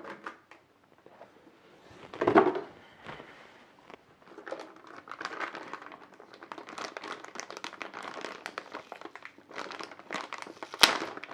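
Plastic packaging around a graphics card crinkling and rustling as it is handled, with a thump about two seconds in and a sharp click near the end.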